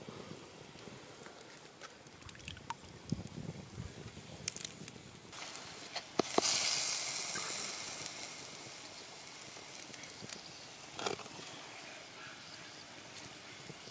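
Wet crushed castor seed mash going into a clay pot set over a fire: a loud hiss sets in about halfway through as the liquid hits the hot pot, then dies away slowly over several seconds while it is stirred with a wooden stick. Before that, soft handling clicks and sloshing.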